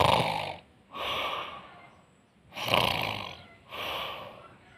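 A person snoring with rough, airy breaths. A louder breath is followed by a softer one, and the pair comes twice in a slow, even rhythm.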